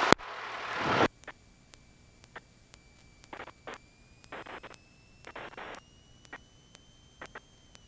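Aircraft radio and intercom: a burst of static hiss for about a second after a radio-check call, cutting off sharply. After that the line is quiet, with faint clicks, a few short crackles and a thin electrical whine that slowly rises in pitch.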